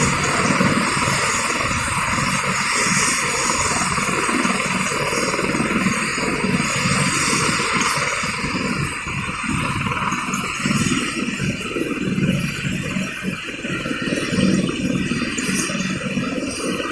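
Helicopter rotors and engine running steadily, a continuous loud whirring rush with an uneven pulsing underneath.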